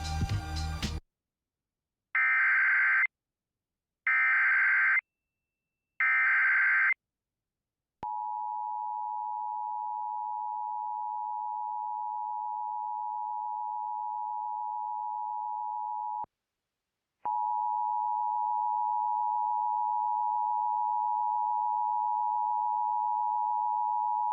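Emergency Alert System alert start: three one-second bursts of SAME header data, a second apart, followed by the steady two-tone attention signal, which runs about eight seconds, breaks off for a second, and comes back louder.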